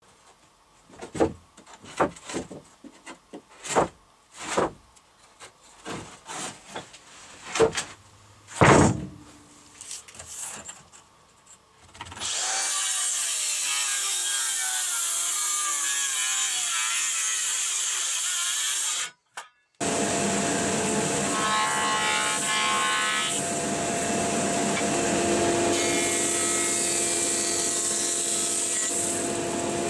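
Wooden boards knocked and shifted by hand, a string of sharp knocks over the first twelve seconds. Then a cordless circular saw cuts through a board, its pitch wavering under load. After a short break, a jointer runs steadily, machining the edge of a board.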